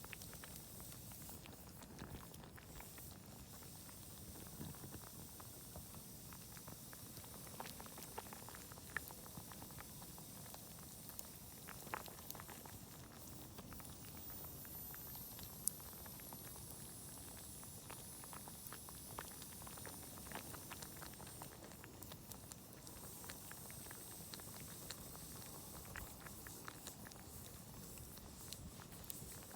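Food bubbling in a pot over a campfire, faint and steady, with scattered sharp crackles and pops from the burning wood; the loudest pop comes about two-thirds of the way through.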